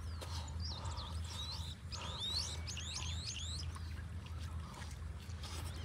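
Birds chirping: many quick, high chirps that sweep up and down, busiest from about two to three and a half seconds in, over a steady low background rumble.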